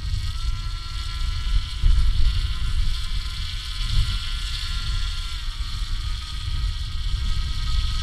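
RC autogyro in flight: a steady thin whine from its motor and propeller, stepping up slightly in pitch about half a second in and dropping a little about five seconds in. Under it is a heavy, uneven low rumble of wind buffeting the microphone.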